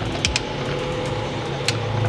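A socket wrench clicking a few times on a skid plate mounting bolt, over a steady low hum.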